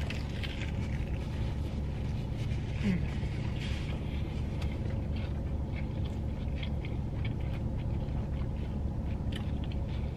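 Biting and chewing a hand-breaded chicken sandwich, with many small mouth clicks, over the steady low hum of the car's air conditioner running. A brief closed-mouth "mm" about three seconds in.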